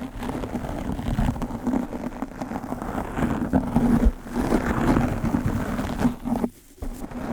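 A brush rubbed fast and hard right on a microphone, making a dense, continuous scratchy rustle that breaks off for a moment near the end.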